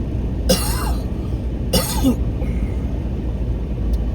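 A person coughing twice, about a second apart, over the steady low rumble of road and engine noise inside a moving car.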